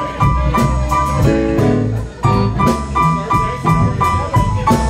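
Live blues band playing, with a Casio Privia digital piano to the fore in repeated high notes over electric guitar, upright bass and drums keeping a steady beat. The music dips briefly about two seconds in.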